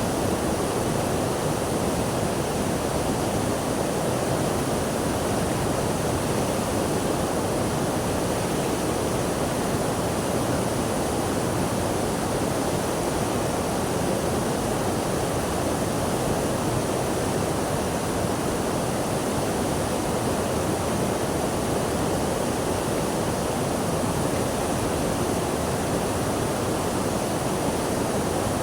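Steady rushing water, an even unbroken sound with no separate splashes and no change in level.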